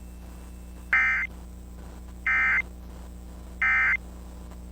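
Emergency Alert System End of Message signal: three short buzzy bursts of digital data tones, about a second and a third apart, marking the end of the alert broadcast.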